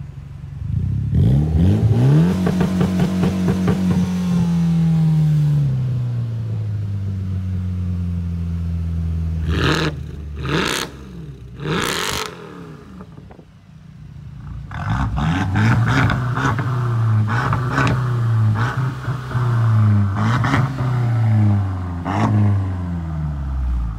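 Mitsubishi Lancer with a muffler delete revved up about a second in, held high for a few seconds, then dropping back to idle; a few sharp cracks follow. Then a Mercedes-Benz C63 AMG's V8 is blipped repeatedly, a run of short revs one after another.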